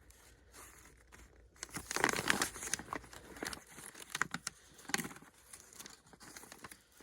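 Firework cake packaging crinkling and rustling as it is handled and moved, with scattered sharp clicks. It is fairly quiet for the first second and a half, then the rustling comes in irregular handfuls.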